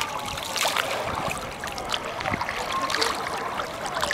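River water splashing and dribbling as people wade waist-deep and a man scoops handfuls of water over his head, with many small irregular splashes and drips.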